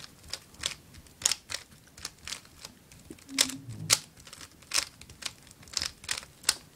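Guhong v2 3x3 speedcube being turned by hand, its plastic layers clicking through turns irregularly, about two to three clicks a second, as it is scrambled before a solve.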